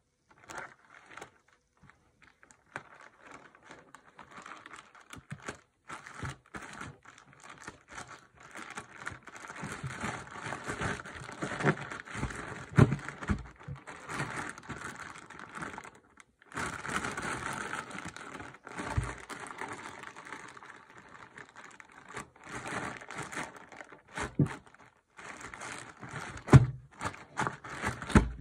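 Thin polyethylene courier flyer bags crinkling and rustling as they are handled, folded and pressed flat, in irregular spells with short pauses. A few dull knocks are mixed in.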